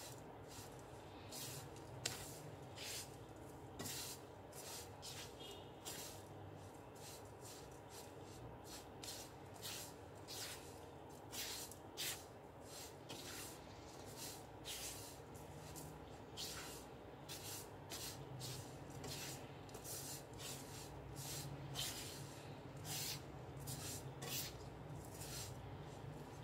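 Silicone spatula scraping and rubbing across a nonstick pan, stirring sugar-coated young coconut strips as they are dried out for coconut jam; quick, irregular strokes over a faint steady low hum.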